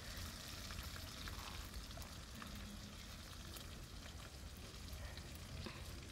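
Crickets frying in a wok over a wood fire: a faint, steady sizzle with scattered small crackles.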